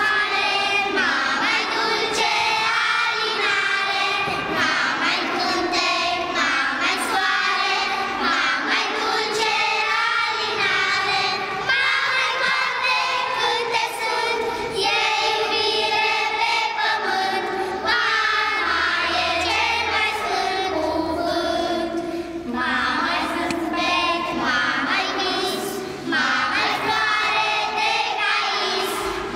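Children's choir singing a song together, phrase after phrase with short breaks between lines.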